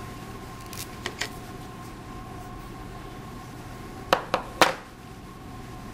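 Small tools and plastic phone parts clicking and tapping as a smartphone is taken apart by hand: a few light ticks about a second in, then three louder sharp clicks in quick succession a little after four seconds in, over a steady low electrical hum.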